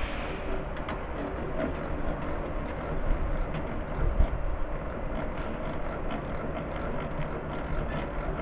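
Crank handwheel on a laboratory vacuum planetary mixer being turned by hand to move the mixing head along its lead screw: a steady rumbling noise with faint scattered ticks.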